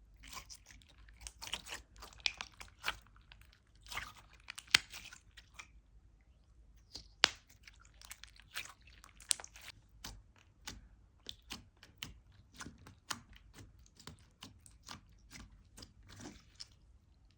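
Slime being squeezed and worked by hand, giving irregular crackling clicks and wet pops, with a couple of louder sharp pops about five and seven seconds in.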